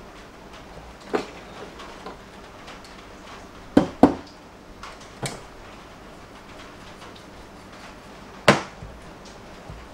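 About five sharp knocks and clinks as espresso tools, a portafilter and a dosing cup, are handled and tapped together. Two knocks come close together about four seconds in, and the loudest comes near the end.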